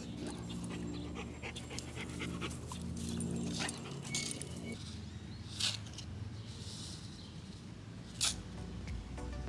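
Yellow Labrador retriever panting close by, with a sharp click about halfway through and another near the end.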